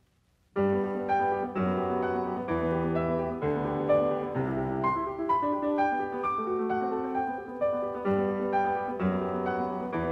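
Background piano music, starting abruptly about half a second in after a brief silence.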